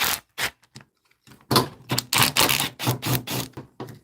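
Rapid, irregular clicking and clattering of hard objects, sparse at first and then dense from about a second and a half in.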